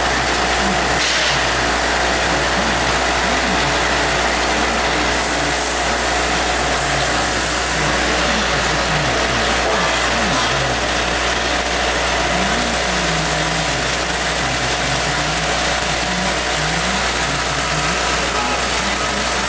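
Stainless steel vibratory bowl feeder running, its drive giving a steady hum while plastic bottle caps rattle and chatter along the bowl's spiral track.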